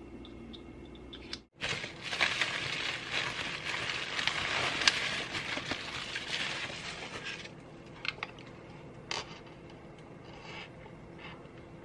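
Plastic bubble wrap rustling and crinkling as it is pulled off a camera, a dense crackle for several seconds, then quieter handling with a few light clicks.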